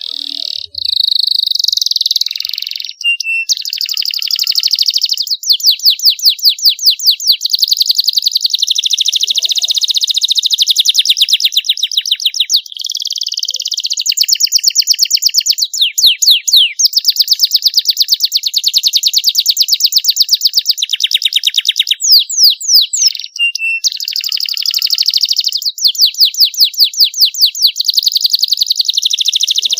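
Young canary singing a long, continuous song: runs of fast repeated trill notes, many a second, alternate with smoother rolling passages, broken by short pauses about two, twelve and twenty-two seconds in.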